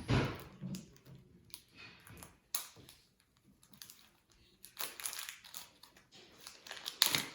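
Plastic toy packaging being handled and pried open: scattered crinkles, clicks and taps, with the loudest burst near the end.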